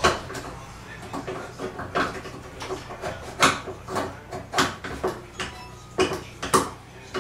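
Metal wrench clinking and knocking against the basin's metal drain fitting as it is fitted, turned and repositioned on the nut: about a dozen sharp, irregular clicks, roughly two a second.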